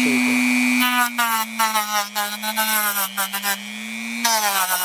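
Handheld rotary tool running, its motor hum dropping in pitch about a second in as a sanding block is pressed against the spinning styrofoam. Repeated short squeaky, scraping bursts follow as the sandpaper shapes the foam.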